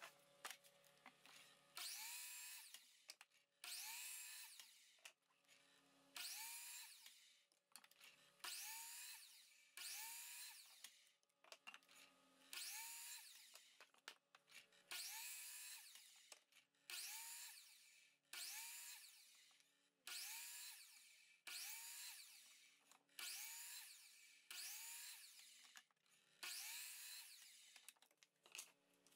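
Miter saw cutting a cedar board over and over, about thirteen cuts roughly two seconds apart. Each cut starts with the motor whine rising as it spins up, then the blade's cutting noise, which dies away as the saw winds down. The cuts are faint.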